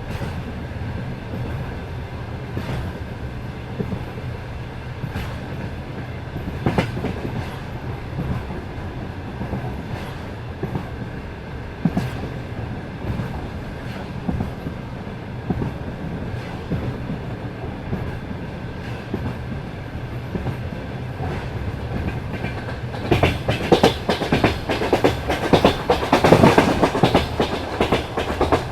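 Passenger train running, its wheels clattering over the rail joints above a steady rumble. Near the end the clatter grows denser and louder.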